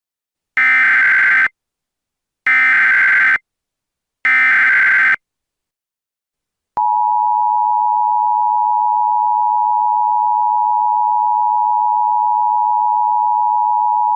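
Emergency Alert System tones: three bursts of SAME header data, each about a second long, a buzzy electronic warble. About halfway in, the steady two-tone EAS attention signal begins and holds.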